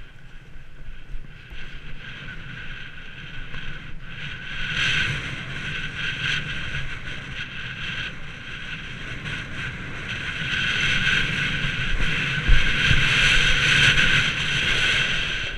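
Snowboard sliding and carving down a ski run, a steady scraping hiss of the board on snow that grows louder about four seconds in and again in the last few seconds, with wind rumbling on the microphone and a low thump about three seconds before the end.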